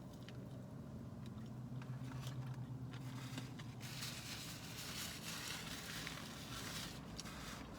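Close-up chewing and crunching of crispy fast food, with scattered small clicks and a louder crackly, rustling stretch from about four seconds in until just before the end. A low steady hum runs underneath.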